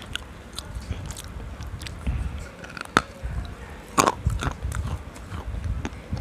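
Close-miked biting and crunching of a hard, chalky grey chunk, with steady chewing between sharp cracks; the loudest cracks come about three and four seconds in.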